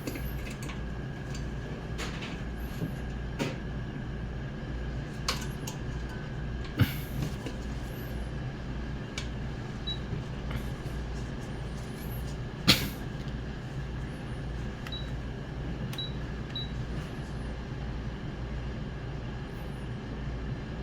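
Steady low background rumble with a few light clicks and taps from handling tools and parts. The loudest tap comes about thirteen seconds in.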